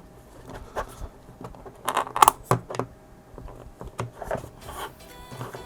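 Small plastic parts of a compact digital camera being handled and pressed together during reassembly: scattered light clicks and short scrapes, the loudest about two seconds in.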